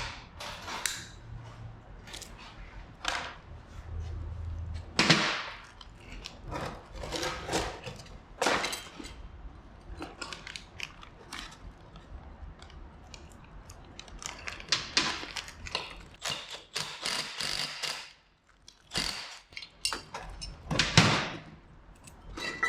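Metal tools and hardware clanking and knocking during suspension work on a truck, with a quick run of clicks in the second half.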